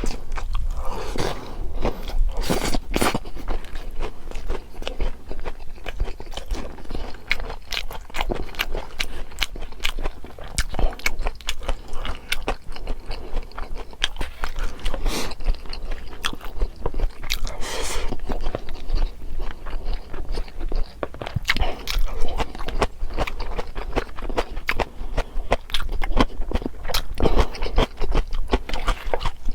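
Steady eating sounds: chewing and biting, with many small crisp crunches and clicks and a few louder crunchy bites.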